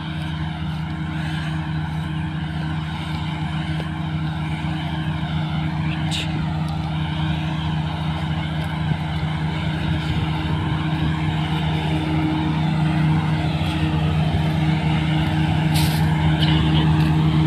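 Combine harvester running steadily while harvesting sunflowers: a constant diesel engine and machinery drone, a little louder in the later seconds.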